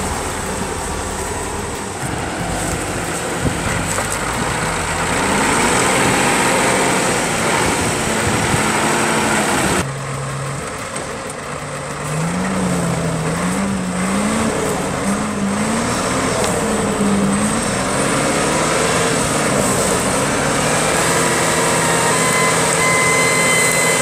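Wheel loader's diesel engine working hard while its stump-grubber attachment pulls tree stumps and roots out of the ground. The engine pitch rises and falls repeatedly as it is loaded and revved, with a sudden change about ten seconds in.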